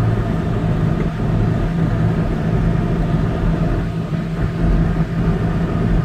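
Steady engine and road drone heard inside a car's cabin as it drives on a snow-covered road: a low hum under a rumbling hiss.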